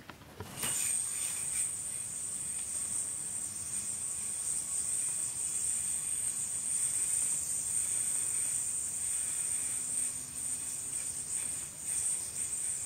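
Ball-bearing yo-yo thrown about half a second in, then sleeping on its string with a steady high-pitched whine while the string is looped through a trick.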